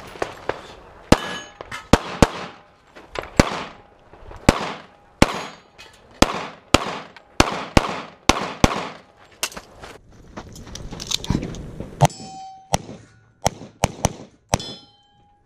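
Pistol shots fired in quick strings during a practical shooting stage, about two dozen of them, each with a short echo. Steel targets clang and ring with a clear ping after several of the later hits.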